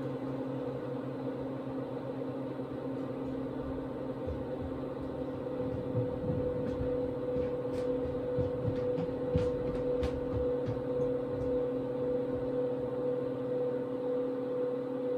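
Victron MultiPlus-II 5kVA inverters humming steadily under a heavy load close to overload. About six seconds in their cooling fans kick on and the sound grows louder and rougher, with a few faint ticks.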